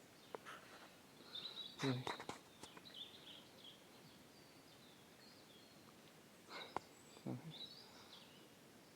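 Quiet woodland with faint small-bird chirping, a few knocks and scuffs of footsteps through mud and undergrowth, and two short low vocal sounds, about two seconds in and again near the end.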